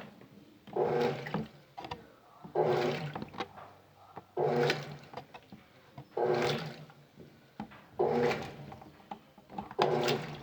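Colormaq LCA12 top-loading washing machine agitating: the agitator swishes the wash water back and forth with a motor hum on each stroke, about one stroke every two seconds.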